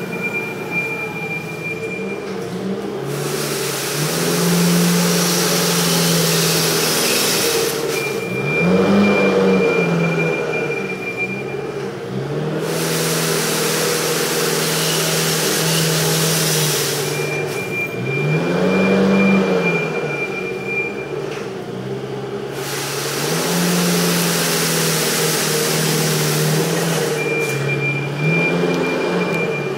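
Forklift engine running and speeding up and slowing as it manoeuvres, while a heavy-duty brush sweeper's bristles sweep across a concrete floor, giving a loud scraping hiss during three sweeping passes. Between the passes a steady high alarm tone sounds.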